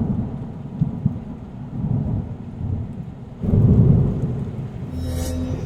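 8-inch subwoofer playing a heavy bass track, picked up by the camera's microphone as deep, irregularly pulsing low bass with little above it, swelling louder about three and a half seconds in.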